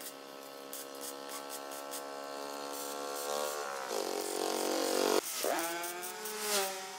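Handheld electric angle grinder running on steel with a steady high whine. The pitch sinks under load about four seconds in, then climbs back up a couple of seconds later as the load comes off.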